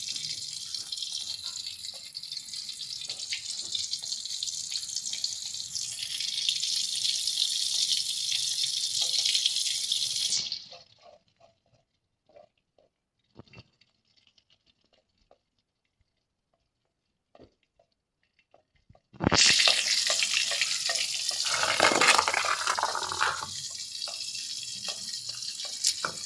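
Hot cooking oil sizzling and crackling in a frying pan as food fries. It cuts out suddenly about ten seconds in, leaving near silence with a few faint clicks, then resumes louder about eight seconds later.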